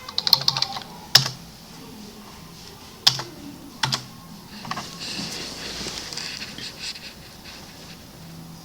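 Computer keyboard being typed on: a quick run of keystrokes, then single sharp key presses spaced a second or so apart, with softer typing near the middle.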